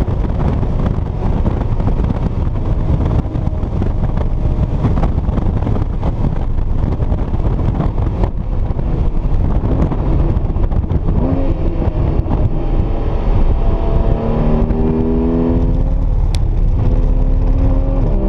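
Porsche Cayman S flat-six engine heard from inside the cabin at track speed, over heavy road and wind rumble. Its pitch wanders through a corner, then climbs steadily under hard acceleration, with a gear change about sixteen seconds in before it climbs again.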